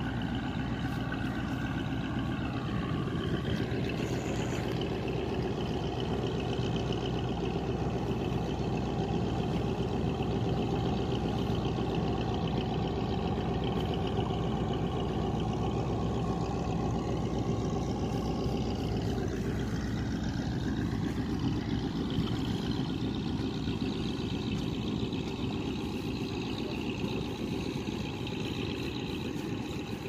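A boat's engine running steadily, a low drone whose pitch shifts about two-thirds of the way through.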